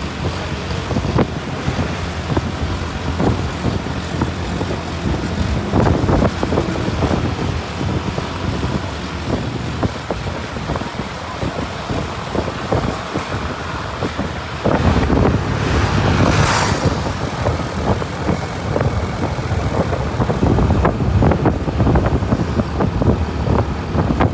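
Road traffic heard on the move: vehicle engine and tyre rumble with wind buffeting the microphone. It grows louder about fifteen seconds in, and a brief sharp hiss follows a second or so later.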